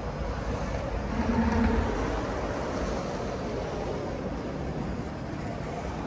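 A car passing close by on the street, its engine and tyre noise loudest about a second and a half in, then settling into a steady traffic rumble.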